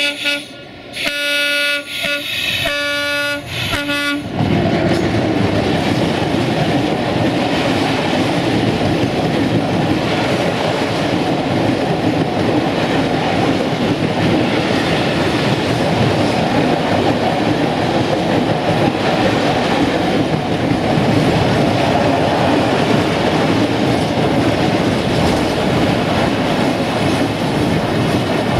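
Electroputere LDE2100 (060-DA) diesel locomotive sounding its multi-tone horn in a series of short blasts, which stop about four seconds in. The locomotive and its long train of hopper wagons then roll close past, with a loud, steady clatter of wheels on the rails.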